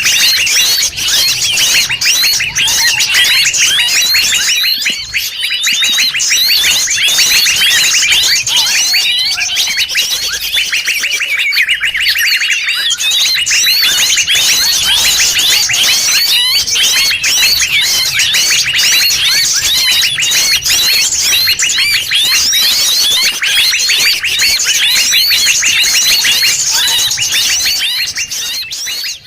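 Bird-lure recording: a loud, dense chorus of many small forest birds' rapid chirps and calls layered over one another without a break, mixed to draw wild birds in.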